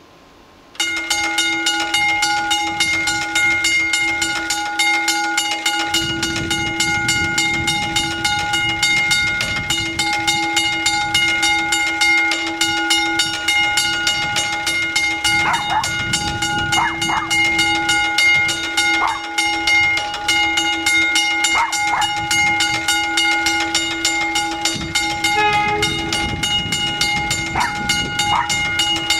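Railway level crossing's electric mechanical bell starting up about a second in and ringing on continuously with rapid, even strokes. This is the crossing activating to warn road traffic of an approaching train.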